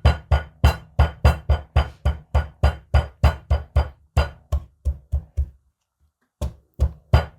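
Ginger being pounded with a bottle to crush it and release its flavour: a steady run of heavy thuds, about three a second, breaking off briefly near the end before starting again.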